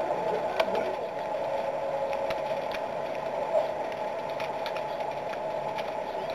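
Steady background noise with a few faint, scattered clicks; no distinct event stands out.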